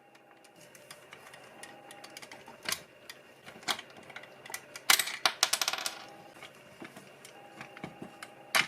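Small hard parts of a scale model car clicking and tapping as they are handled on a work surface, with a quick run of rattling clicks about five seconds in and a sharper click near the end.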